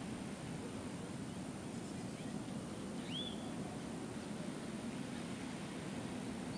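Steady low outdoor background rumble, with one short bird chirp, rising then falling, about three seconds in.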